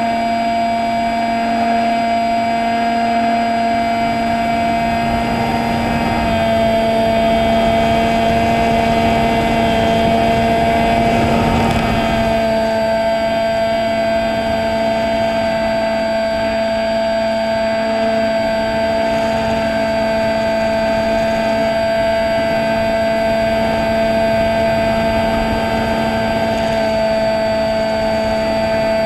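Electric motor and propeller of a fixed-wing drone in flight, a steady whine that shifts pitch slightly a few times with throttle, with wind rush swelling briefly around the middle.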